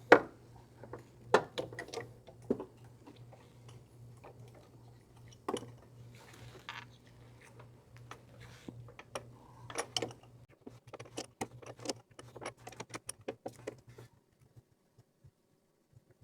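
Scattered clicks, taps and light knocks of hand work on parts and tools in a car's engine bay, with a quicker run of small clicks near the end.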